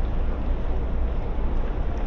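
Wind buffeting a GoPro's microphone: a steady low rumble with a hiss over it.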